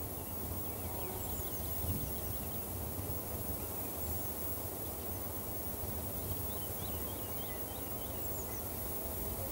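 Outdoor ambience: a steady low rumble with faint bird chirps, short high notes in small scattered clusters.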